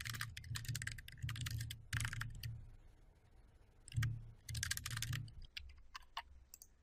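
Computer keyboard typing in quick bursts of keystrokes, then a pause of about a second and a half. More keystrokes follow, with a few separate clicks near the end.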